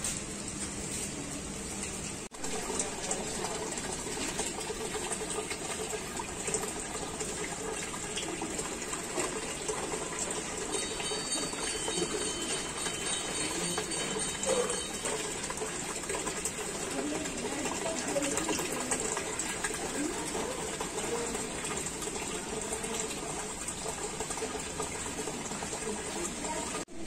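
Steady bubbling and gushing of water in an aquarium tank, from its air bubbler and filter pump.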